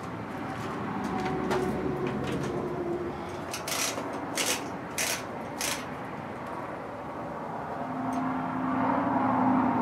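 Handling noise from a kerosene heater being taken apart: a few short sharp clicks of metal parts, four of them in quick succession in the middle, over a steady low hum.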